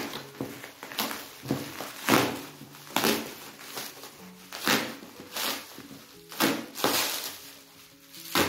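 Plastic bubble wrap crinkling and tearing as it is pulled open from a parcel, in repeated sharp rustles about once or twice a second. Background music with held notes plays underneath.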